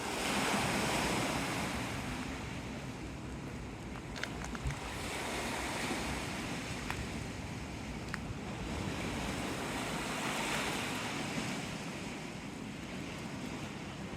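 Waves washing against the bay shore in strong wind, a steady rushing that swells and falls back about every five seconds, with wind buffeting the microphone. A few light clicks near the middle.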